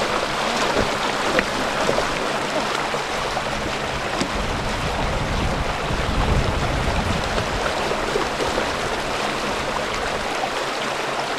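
Shallow muddy water splashing and churning continuously as a person wades and works a fishing line in it, with a heavier low rumble about halfway through.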